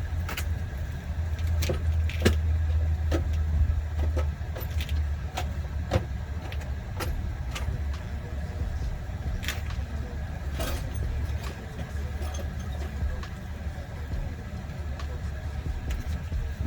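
Scattered sharp metallic clicks and clinks of hand tools being handled, over a steady low rumble of an idling car engine.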